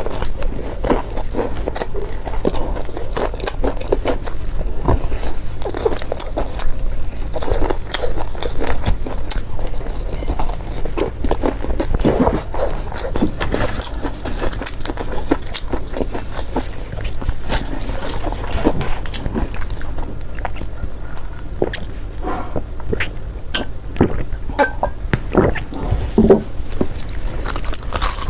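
Close-miked biting and chewing of fried chicken drumsticks, with a dense, irregular run of sharp crisp clicks and crackles from the crust.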